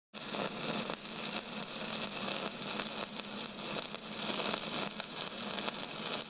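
A steady crackling hiss over a low steady hum, starting suddenly.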